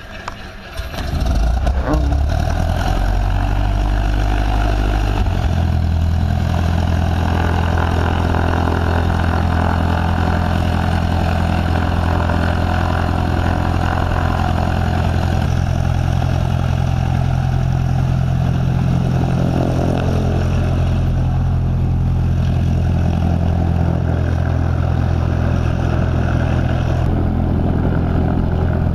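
Cessna 172R's four-cylinder Lycoming engine catching about a second in on a second start attempt, then running steadily at idle. Its note shifts once, around five seconds in, and then holds.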